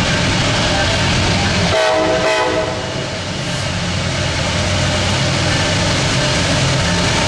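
Diesel freight locomotive running with a steady low engine drone. About two seconds in, a short horn blast of stacked pitches sounds for under a second.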